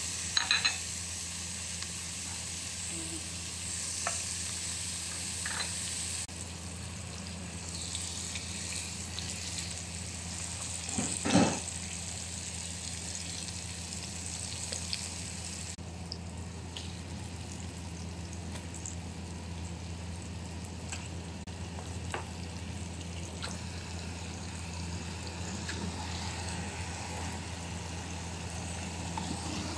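Chopped onion, tomato and spices sizzling in oil in a nonstick frying pan while being stirred with a wooden spatula, with a few knocks against the pan and one loud knock about eleven seconds in. A steady low hum runs underneath.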